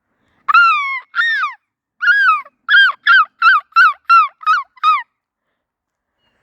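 A gull giving its long call: two drawn-out cries falling in pitch, then a quick run of about eight shorter falling yelps, roughly three a second.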